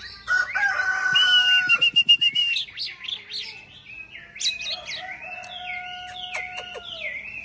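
Oriental magpie-robin singing a varied run of clear whistles, long held notes mixed with quick swooping ones, loudest in the first couple of seconds.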